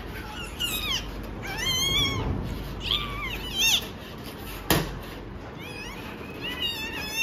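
Newborn puppy crying as it is rubbed and handled: about five short, high, wavering squeals, the last one the loudest. One sharp knock comes about midway.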